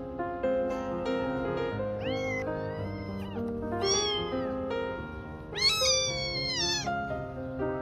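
Kitten meowing three times, the last call the loudest and longest at over a second, over background music.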